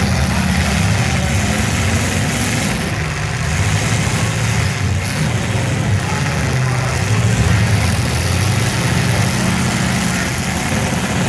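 Engines of several demolition derby cars running together in a steady mix as the cars shove and ram one another.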